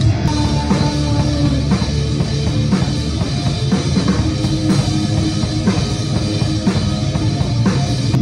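A rock song played by a band: a drum kit with cymbals, over guitar and bass, with a strong drum hit about once a second.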